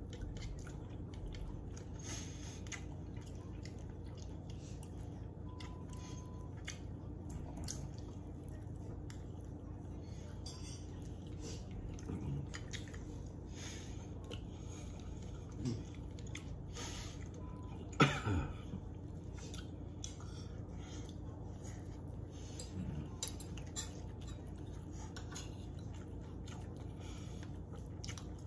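Cutlery clinking and scraping on plates, with chewing, over a steady low hum; one sharp clink about eighteen seconds in is the loudest sound.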